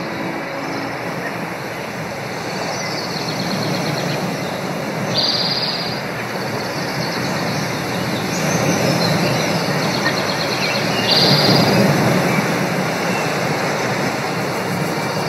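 Ambient nature soundscape: a steady rushing noise that slowly swells, with several short, high bird trills over it. A few held music tones fade out at the very start.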